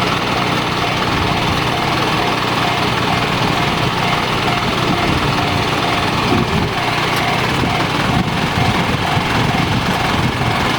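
Japanese railway level-crossing alarm in the JR standard tone, ringing in a steady repeating beat over a continuous mechanical rumble.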